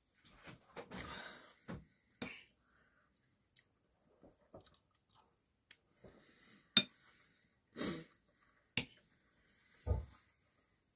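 Close-up eating sounds: a mouthful of couscous being chewed between scattered clicks and taps of a metal spoon, with a few breaths. A sharp click about two-thirds through is the loudest sound, and a low thump comes near the end.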